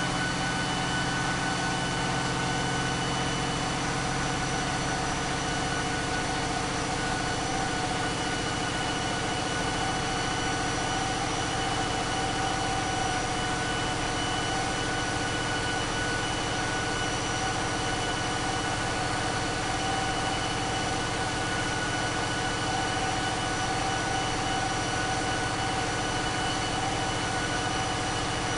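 Caterpillar 3516B V16 diesel engine running steadily on a dynamometer, a loud constant drone with a steady high whine over it.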